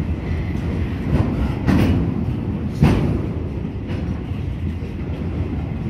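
Freight train's covered hopper wagons rolling past at close range: a steady low rumble, with a few sharp louder clanks between about one and three seconds in.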